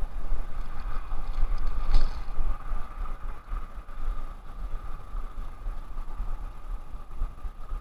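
Wind buffeting the microphone, an uneven low rumble over a steady hum, with one sharp click about two seconds in as a spinning reel is handled after the cast.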